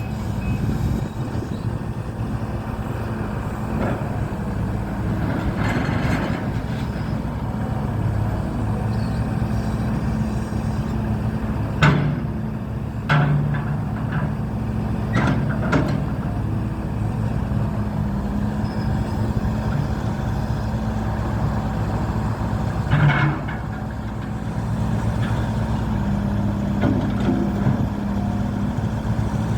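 Case CX130C excavator's diesel engine running steadily, with several sharp knocks or clanks from the machine, the loudest about twelve seconds in and again near the end.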